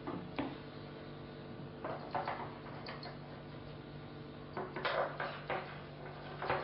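Screwdriver driving screws through a plastic CPU-cooler fan frame into the metal heatsink fins, with the assembly handled on a table: short scrapes and clicks in clusters, busiest about two seconds in and again from about four and a half seconds on.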